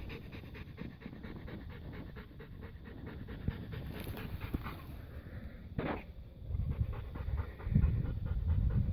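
A dog panting in quick, steady breaths, growing louder toward the end.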